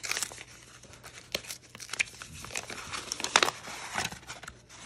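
Plastic packaging crinkling and rustling as it is handled, with scattered crackles and clicks, the loudest about three and a half seconds in.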